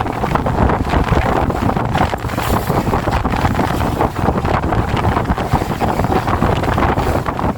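Strong wind buffeting the microphone on a fishing boat at sea: a dense, steady rumbling roar with no pauses.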